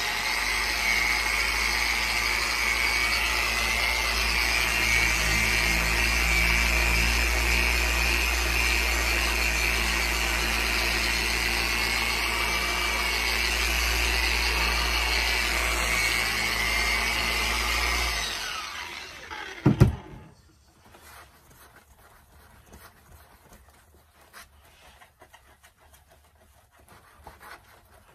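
Handheld electric polisher with a foam pad running steadily as it buffs the painted fiberglass wing surface up to a high shine. About eighteen seconds in it winds down, a single loud knock follows, and then comes the faint rubbing of a microfiber rag wiping the surface.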